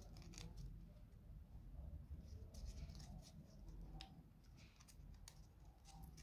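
Faint scattered clicks and light scrapes of small laser-cut wooden model-kit parts being handled and pressed into place.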